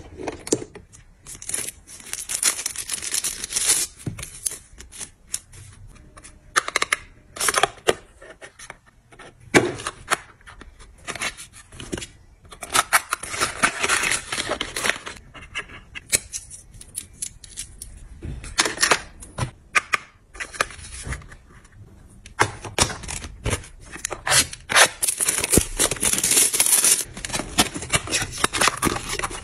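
Hands handling paperboard product boxes and plastic skincare tubes: an irregular run of crisp clicks, taps and rustles as boxes are opened, turned over and set down.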